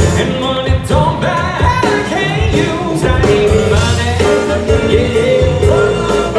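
Live band with a horn section playing: a man singing lead over electric guitar, bass and drums, with saxophones and trumpets playing along.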